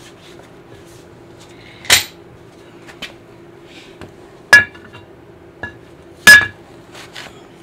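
Sharp metal clanks and knocks as a motorcycle rear wheel is maneuvered into the swingarm: three loud knocks, the last the loudest, the later two ringing briefly, with a few lighter clicks between.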